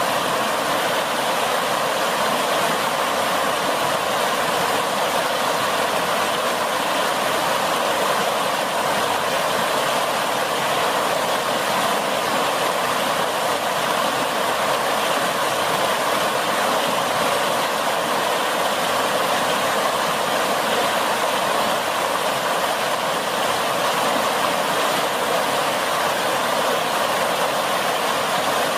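Fast-flowing floodwater rushing past submerged trees and bushes: a steady, unchanging rushing noise.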